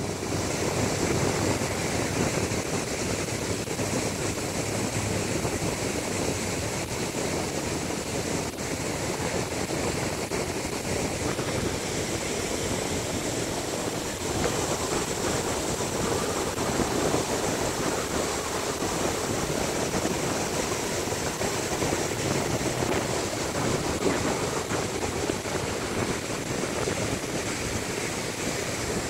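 Ocean surf breaking on a sandy beach: a steady rush of waves with no pauses.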